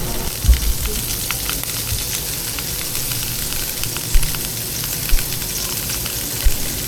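Meat and vegetables sizzling and crackling on a charcoal Korean samgyupsal grill, a steady hiss broken by a few dull low thumps.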